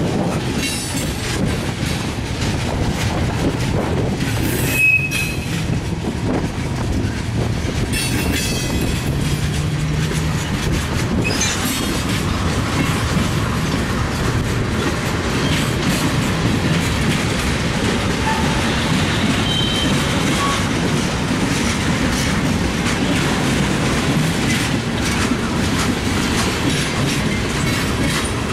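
Freight cars of a mixed freight train (gondolas, tank cars, coil cars) rolling past: a steady rumble and clatter of steel wheels on rail, with a few brief high wheel squeals, the clearest about five seconds in and again around twenty seconds in.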